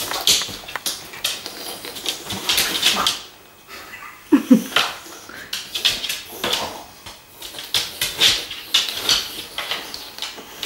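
Boxer dogs snuffling and sniffing at an orange on a tiled floor, with many short noisy snorts and clicks of claws and the fruit against the tiles. A short low grunt comes about four and a half seconds in.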